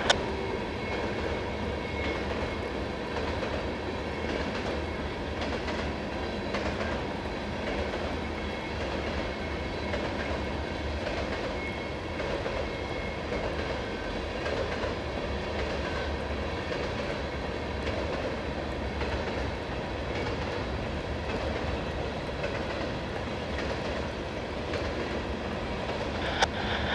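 A freight train of empty tank cars rolling steadily past, a constant rumble with the clickety-clack of wheels over rail joints.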